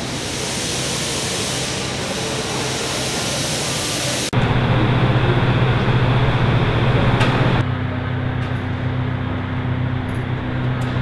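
Steady hangar background noise: an even rush for the first four seconds, then a sudden change to a louder steady low machine hum, which steps down about three seconds later to a duller hum with a second steady tone.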